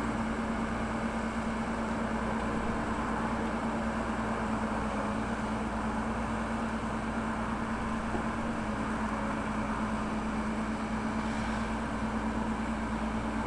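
Backhoe loader's diesel engine running steadily, a constant drone with a steady hum.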